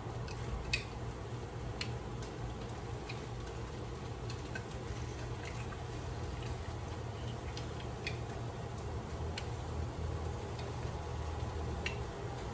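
Limes being pressed in a hand-held metal lime squeezer: light, irregular clicks of the metal hinge and cups, with juice squeezed out, about a dozen times. A steady low hum runs underneath.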